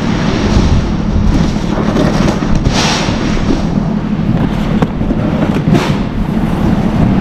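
A vehicle engine running steadily as a loud low rumble, with a few short knocks about three and six seconds in.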